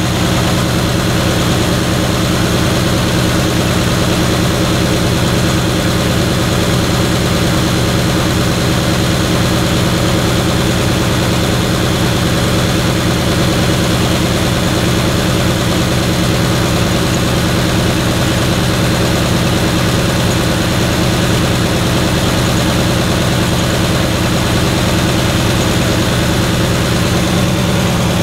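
An engine idling steadily with an even, unchanging low hum and no revving.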